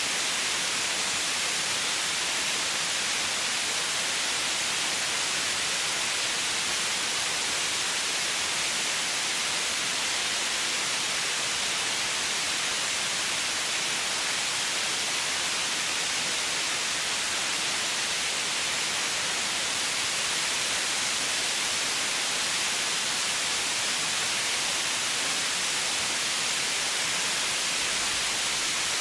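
Steady white noise: an even hiss with most of its energy in the upper range.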